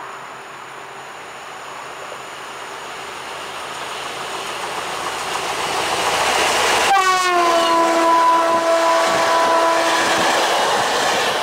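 SU46 diesel locomotive with three coaches approaching at speed and running past, the noise swelling as it nears. About two-thirds of the way in it sounds one long horn blast, the Rp1 'attention' signal. The horn's pitch drops sharply at the start as the locomotive passes, and the blast is held about three seconds while the coaches roll by.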